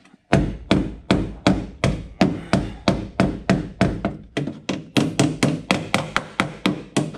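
Hammer tapping a Land Cruiser's dented sheet-steel body panel against a dolly held behind it, in a steady run of metallic strikes about three a second, a little quicker near the end. It is the crushed panel edge being knocked back out into shape.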